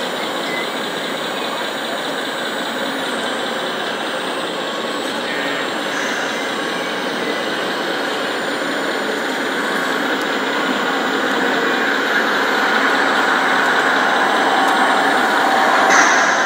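Radio-controlled model excavator and machinery running steadily, a continuous mechanical whir that grows louder over the last several seconds, with a short sharp clack near the end.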